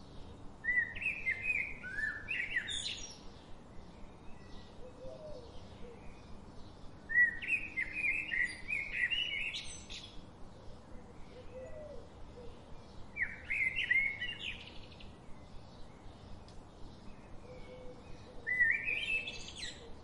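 Male house finch singing: four long, jumbled, warbling song phrases of a couple of seconds each, several seconds apart. A faint, steady, rapid ticking runs underneath.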